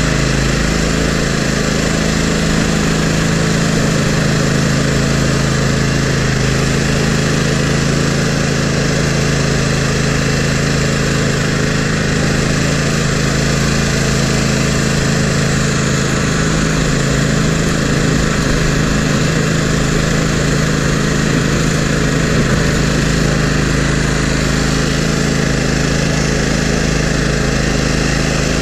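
Toro GrandStand Multiforce's engine running steadily at a constant speed, heard close up while the machine plows snow with its front blade.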